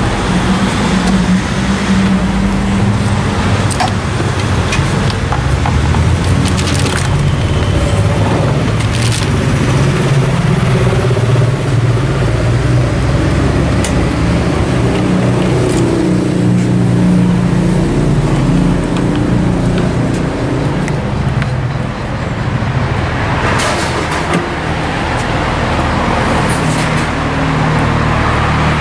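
Road traffic noise, vehicle engines running and passing steadily, with a few sharp clicks from a scooter's plastic top case being opened, shut and latched.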